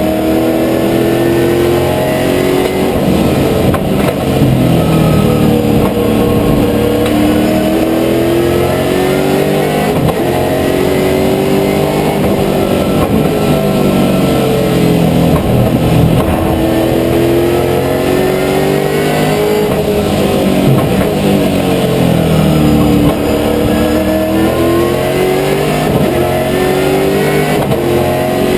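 Holden Commodore VZ V8 Supercar's V8 engine at racing speed, heard from inside the stripped cabin. The pitch climbs through the gears in steps with quick upshifts, then falls away on braking and downshifts, several times over.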